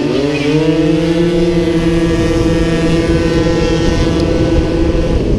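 50cc Honda Dio two-stroke racing scooter engine at full throttle. Its revs climb over the first second, then hold at a steady high pitch for several seconds.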